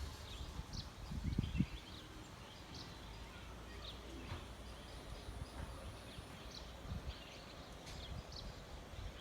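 Birds giving short, high chirps about once a second over a steady low outdoor rumble, with a few louder low thumps about a second in.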